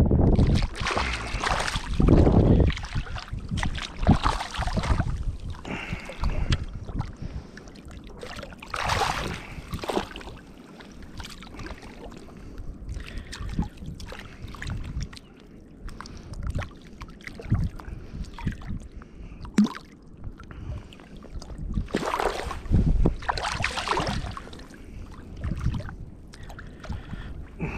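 Shallow water sloshing and splashing in irregular bursts around a rope stringer of speckled trout as a wading angler handles it.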